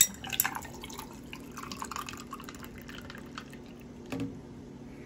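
Horchata poured from a plastic pitcher over ice into a glass: splashing, dripping liquid with small clinks, a sharp clink as the pour starts and a light knock about four seconds in. A faint steady low hum runs underneath.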